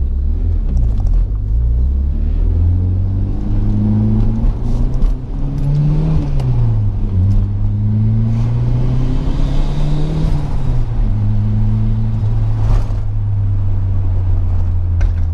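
Turbocharged Nissan GA16DE 1.6-litre four-cylinder engine of a B13 Sentra pulling under acceleration, heard from inside the car. Its note climbs and drops back twice, then holds steady near the end.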